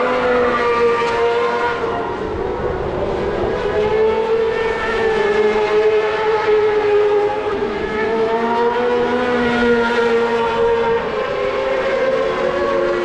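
Racing motorcycle engines running at high revs: a high, continuous engine note that wavers slowly up and down in pitch.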